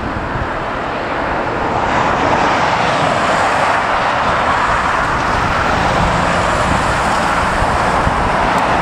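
Boeing 777 jet engines: a steady, loud rushing noise that grows louder about two seconds in and holds as the airliner touches down and rolls out along the runway.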